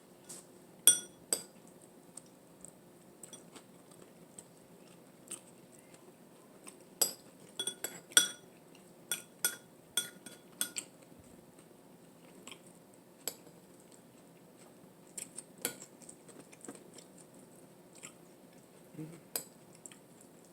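Kitchen utensils clinking and tapping against dishes and a pan in scattered, irregular strikes, a few of them sharp metallic clinks that ring briefly.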